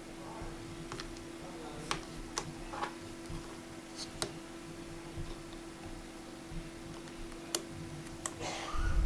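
Scattered small sharp clicks and taps of metal repair tools against the phone's tiny parts, while the front camera is worked loose from an iPhone 6S screen assembly. Eight or nine irregular clicks over a faint steady hum.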